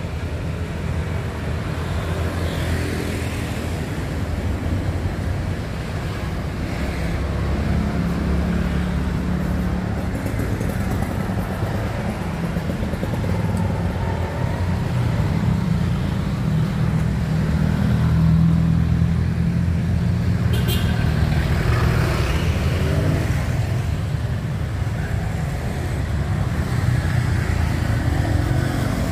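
Road traffic: a steady low engine hum of motor vehicles running close by, with a short sharp click about 21 seconds in.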